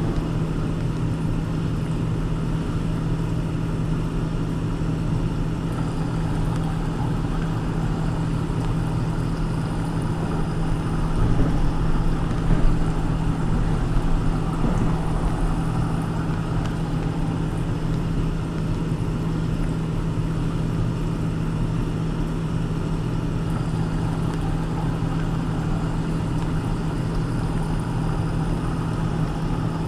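Steady road and engine noise of a car being driven, a constant low drone and rumble with a few louder bumps around the middle.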